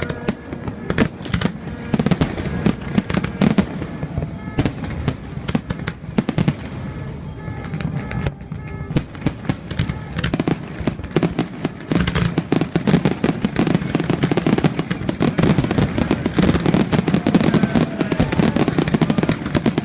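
Aerial fireworks display: a rapid series of bangs and crackling bursts, growing denser and more continuous in the second half.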